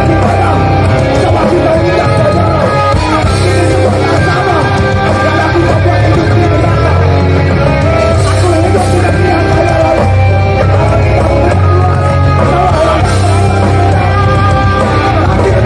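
Hardcore band playing live at full volume: loud guitars, bass and drums in a dense, unbroken wall of sound.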